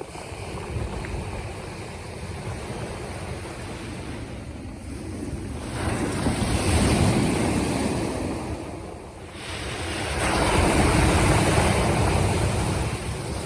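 Black Sea waves breaking and washing up on the shore, with two large surges of surf, one about six seconds in and one about ten seconds in, over wind rumbling on the microphone.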